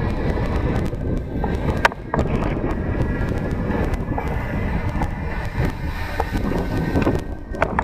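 Wind buffeting the microphone of a helmet-mounted camera, with tyre and road rumble from an electric bike riding along a paved street, dotted with sharp clicks and rattles, a loud one about two seconds in and another near the end.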